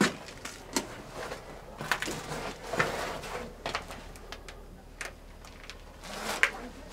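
Irregular knocks and clunks, roughly one a second, from someone stepping and handling things while moving through the enclosed interior of an electric locomotive's body.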